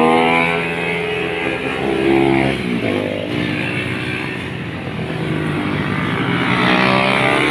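Small motorcycles revving hard as they pass on the road. The engine note climbs, drops sharply about two and a half seconds in, then climbs again near the end.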